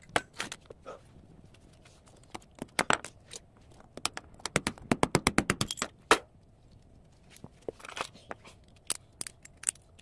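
Sharp metallic clicks and clatter of small microwave-oven parts being handled with hand tools and dropped onto concrete, with a fast run of clicks in the middle.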